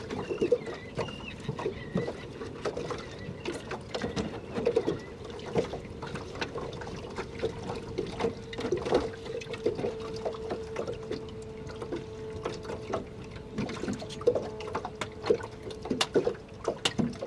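Small waves lapping and slapping irregularly against the hull of a small boat, over a steady hum.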